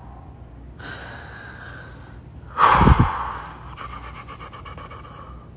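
A woman sobbing: shaky crying breaths, with one loud gasping sob about halfway through, then a trembling, whimpering sob.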